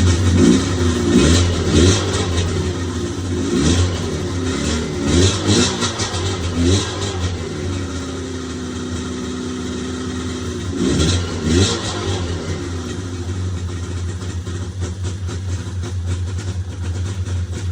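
Polaris Edge X 800 snowmobile's freshly rebuilt two-stroke twin with twin pipes, running on its first fire-up. It is blipped up and down again and again, settles into a low idle for a few seconds, then blips twice more. It cuts off at the very end. The owner traces the low idle to a drive belt that is too tight.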